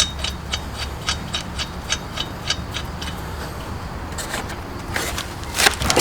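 Hand ratchet clicking steadily, about four clicks a second, as a wheel's lug nut is worked onto its stud, then a few louder metal clanks near the end, over a low steady hum.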